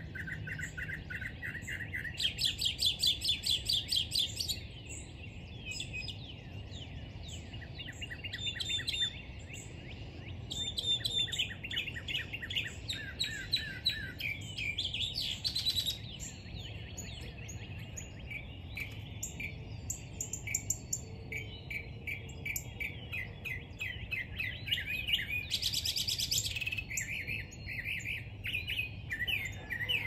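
Several songbirds singing at once in a morning chorus: overlapping chirps, whistles and rapid trills, with a loud fast high trill a couple of seconds in and again near the end, over a faint low rumble.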